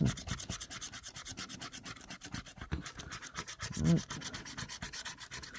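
A scratch-off lottery ticket being scratched, a quick run of short rubbing strokes, several a second, as the coating comes off. A brief voice sound breaks in about four seconds in.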